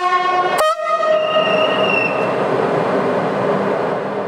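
SNCF BB 22200 electric locomotive standing at the platform, its horn giving a short blast right at the start and then a second, higher note that fades away over about a second and a half, over the locomotive's steady running noise.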